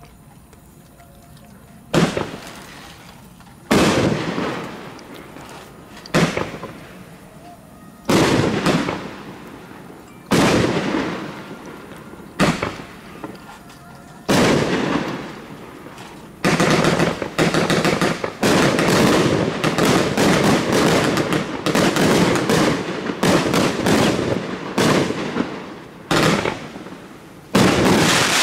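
Flashing Fireworks FF1145 Shredder 500-gram consumer cake firing: single shots about every two seconds, each a sharp bang that fades over a second or so. From about halfway it becomes a rapid barrage of many shots for about ten seconds, and one last shot comes near the end.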